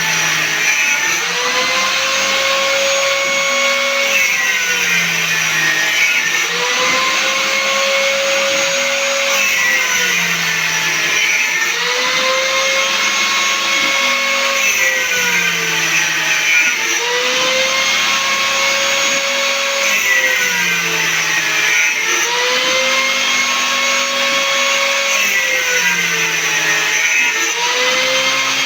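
CNC router cutting a guitar fretboard. The spindle's steady whine dips in pitch and recovers about every three and a half seconds in a repeating cycle, with lower motor tones changing in steps underneath.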